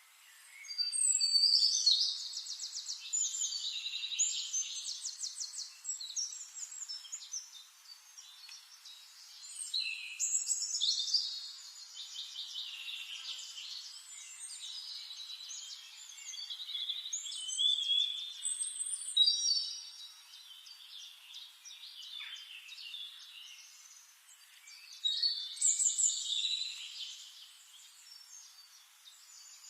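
A songbird singing in long phrases of rapid, high trills and chirps, in four loud bouts with quieter chirping between them.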